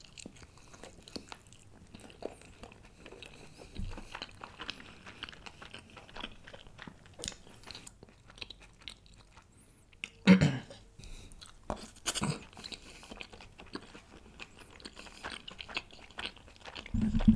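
Close-miked chewing of a steamed chicken momo (dumpling): a bite, then a steady run of small wet mouth clicks and smacks. Two louder sounds come about ten and twelve seconds in, and a louder low sound near the end.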